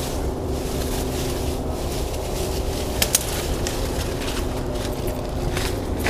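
Dry leaves and twigs rustling and crackling as they are scooped off the ground by hand, with two sharp snaps about three seconds in, over a steady low rumble.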